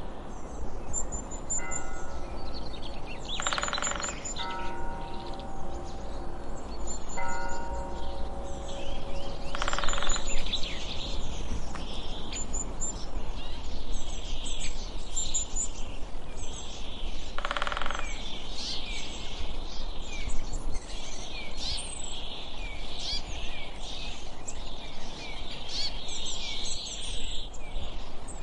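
Woodland ambience of many small birds chirping, over a steady hiss, with soft sustained music notes during about the first half.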